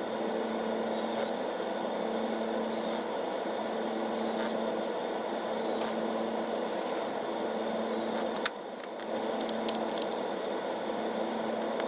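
A steady background hum with scattered small clicks and scrapes of a screwdriver working small screws into a phone's frame, with a quick run of clicks about eight to nine seconds in.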